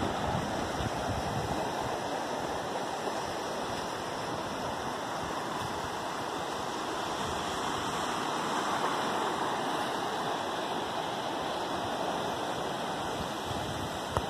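Steady rushing of surf breaking on a rocky shore, mixed with wind.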